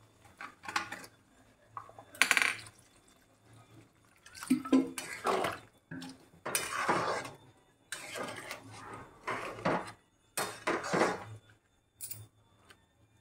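Metal spatula stirring and scraping a chickpea curry in a metal kadai, in repeated separate strokes, as water is added to the gravy.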